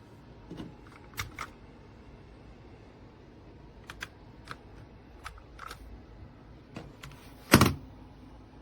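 Scattered sharp clicks, about a dozen spread irregularly, with one louder knock about seven and a half seconds in.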